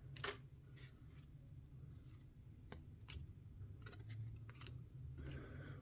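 Faint, irregular clicks and light rubbing of trading cards being handled and slid past one another.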